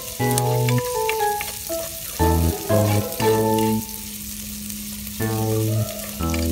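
Diced onions and garlic sautéing in oil in a pot, sizzling, as a spatula stirs and scrapes them. Background music with a stepping melody and bass notes is louder than the sizzle.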